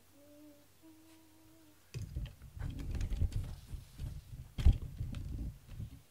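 A person hums two short notes, the second a little higher. About two seconds in, close rumbling, rustling and clicking sets in, with one sharp thump, the loudest sound, a little before the end.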